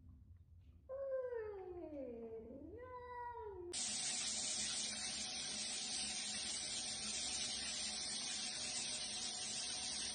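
A cat meows in a long, drawn-out yowl that falls in pitch, then gives a shorter call that rises and falls. About four seconds in, a loud, steady hissing rush starts and drowns everything else.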